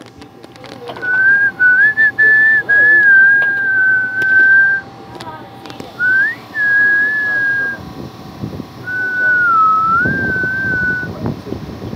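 A man whistling a tune through pursed lips: one clear, wavering high note that runs in three long phrases with short breaks between them.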